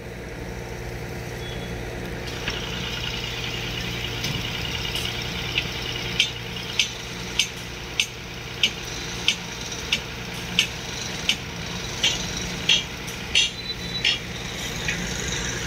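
Heavy construction machinery's diesel engine running steadily. From about six seconds in until about fourteen seconds in, a regular series of sharp metallic knocks comes about one and a half times a second.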